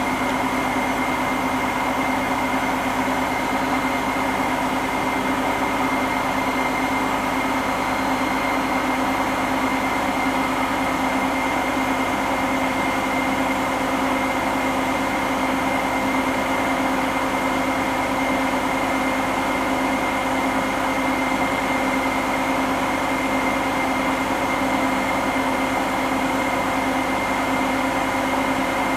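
Hotpoint NSWM 843C inverter-motor washing machine spinning empty at full speed, a steady whine with several held tones and no change in pitch. The owner is unsure whether the drum bearings are starting to go.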